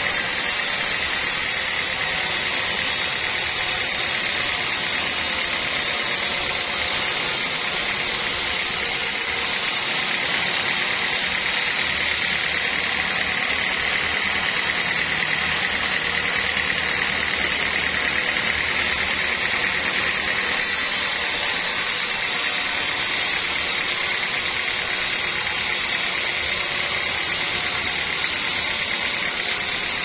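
Band sawmill blade cutting lengthwise through a teak beam: a steady sawing noise with a strong high-pitched edge, even in level throughout.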